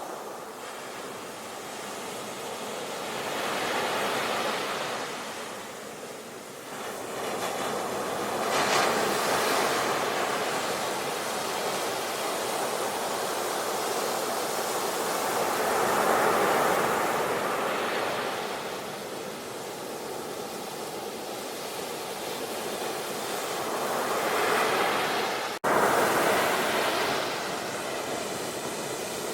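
Sea waves breaking and washing on a shore, the surf swelling and falling back every several seconds. A momentary dropout near the end, like a splice in the recording.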